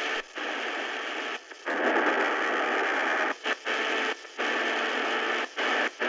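Shortwave static hiss from the Prunus J-150 BTS radio's speaker while it is being tuned across the band. The hiss breaks off briefly several times.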